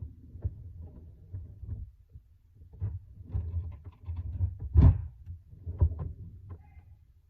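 Irregular knocks, bumps and low rumbles of things being handled close to the microphone, with the loudest thump about five seconds in and a second sharp one about a second later.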